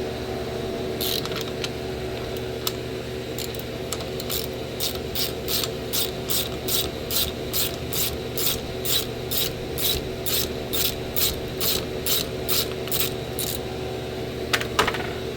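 Ratchet wrench clicking in a steady run, about three clicks a second, working a stubborn bolt out of an idler pulley; two sharp knocks near the end.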